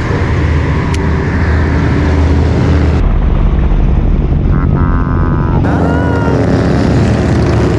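Big motorcycles, Harley-Davidson choppers, running close by with a steady low engine rumble.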